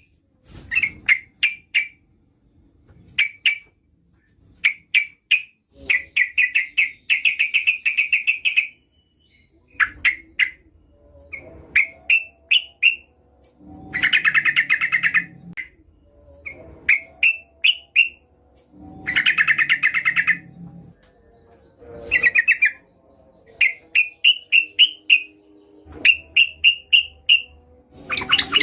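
A female yellow-vented bulbul (trucukan) calling to draw in males: bursts of quick chattering notes and short rising phrases, repeated every second or two with short gaps. A few of the bursts are longer, dense rattles.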